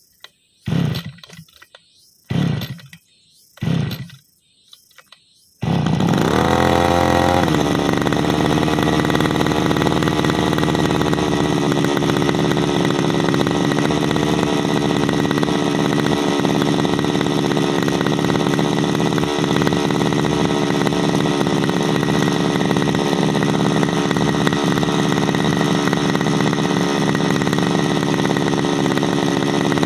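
A 33cc backpack brushcutter engine being pull-started: three short cranking pulls about a second and a half apart, then it catches about five and a half seconds in. It rises briefly in pitch and settles into steady running.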